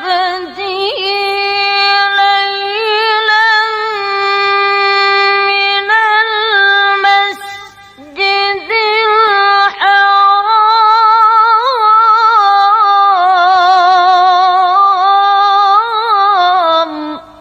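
A woman's voice chanting Qur'an recitation in the melodic tilawah style, holding long drawn-out notes ornamented with quick wavering trills, with a short break about seven to eight seconds in before the phrase goes on and ends near the end.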